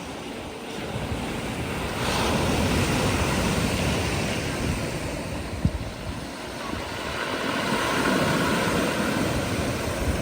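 Black Sea surf washing onto the beach, a steady rush that swells as waves break about two seconds in and again near the end.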